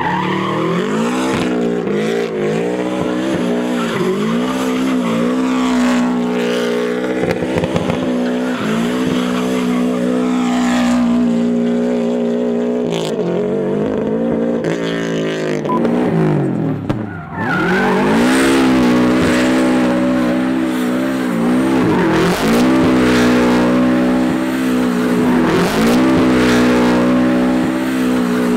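Turbocharged Subaru Impreza WRX STI rally car doing donuts: the engine is held at high revs with tyres squealing and skidding, its pitch dipping and climbing back again and again as the throttle is worked. It drops away briefly about 17 seconds in, then comes back louder.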